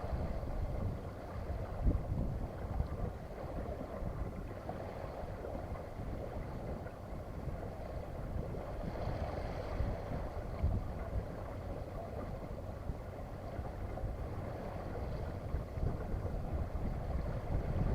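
Wind buffeting the microphone in uneven gusts, over a steady rush of water along the hull of a small sailboat under sail.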